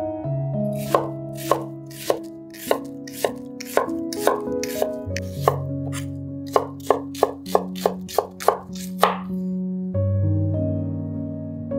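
Chef's knife chopping red onion on a wooden cutting board: a run of sharp knocks of the blade on the board, slower at first and quicker in the second half, stopping about nine seconds in. Soft background music under it.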